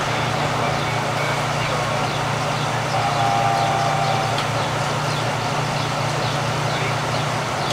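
Soviet T-34 tank's V-12 diesel engine running with a steady low drone as the tank creeps forward, with a faint clatter of its steel tracks.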